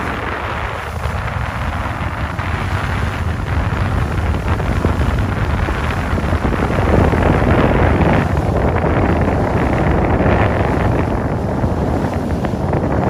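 Wind buffeting the microphone on a moving boat, over the boat's steady running noise and rushing water. It grows a little louder about seven seconds in.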